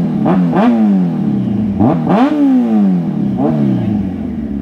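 Kawasaki superbike engine revved in neutral with sharp throttle blips, about four in all: each time the revs shoot up and then fall slowly back.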